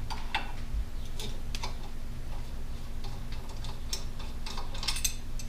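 Scattered light clicks and taps of hand work on motorcycle handlebar parts and wiring, irregular rather than rhythmic, over a steady low hum.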